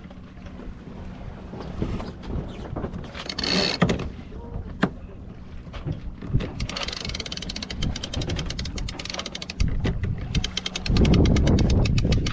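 Sailboat's sheet winch being cranked with its handle: rapid runs of ratchet clicks, two of them, the second near the end. A loud low rumble of wind on the microphone sets in near the end.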